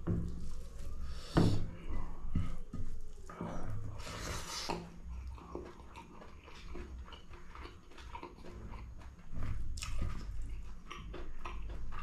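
Close-up chewing of fried pork, with many small wet mouth clicks and a few louder bursts of noise.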